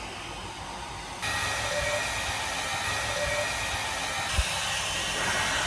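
Hair dryer running with a steady hiss and a faint whine, starting about a second in. There is a single soft knock a little over four seconds in.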